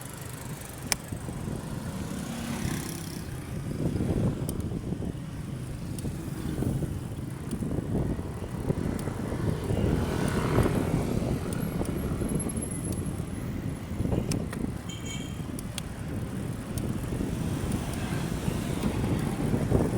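Wind rumble on the microphone and road noise while riding a bicycle, with a few light clicks.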